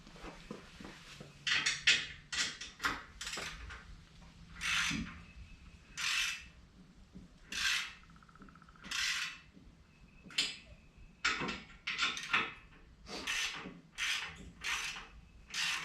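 Repeated rasping scrapes, each about half a second long, coming roughly every second or so in an uneven rhythm.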